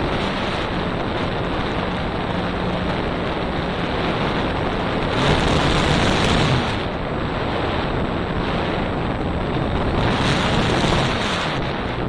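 Wind rushing over the microphone of an action camera mounted on an electric RC trainer plane in flight, with the faint steady hum of its brushless motor and propeller underneath. The rush swells louder about five seconds in and again near ten seconds.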